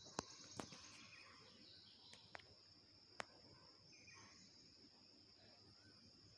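Near silence, with a faint steady high-pitched drone and a few sharp ticks.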